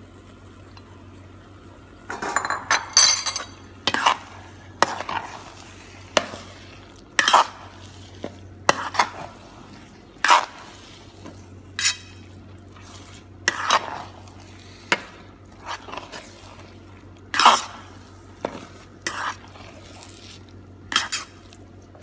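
Metal spatula scraping and clacking against a frying pan as noodles, vegetables and egg are stir-fried, in irregular strokes about once a second that begin about two seconds in, over a steady low hum.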